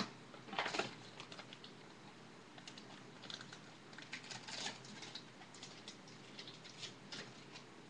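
Trading cards being handled and flicked through: a run of small clicks and short rustles, with a louder cluster just under a second in.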